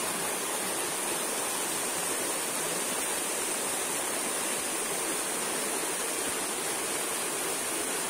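Steady rushing of a shallow rocky stream spilling over small cascades.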